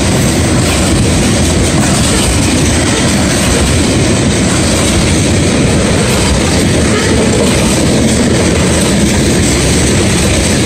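Freight train tank cars rolling past close by: a loud, steady rumble and rattle of steel wheels on the rail.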